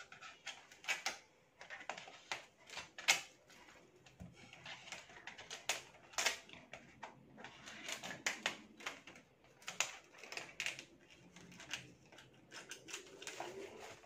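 Scissors cutting the clear plastic shrink-wrap on a box of brush pens: a string of irregular snips and clicks, with the thin film crackling as it is pulled and handled.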